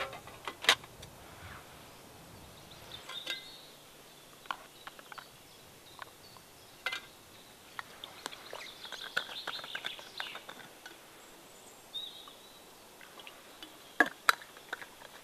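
Scattered clicks, taps and knocks of camping kit being handled: a metal cook set and fuel bottle, with two sharp knocks near the end. Birds chirp briefly now and then.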